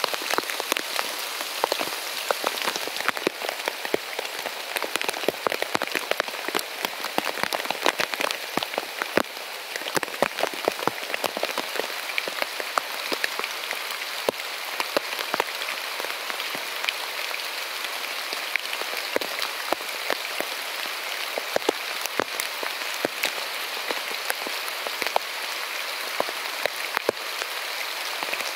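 Steady heavy rain: a continuous hiss of rainfall with many separate, sharp drop impacts on a surface close by.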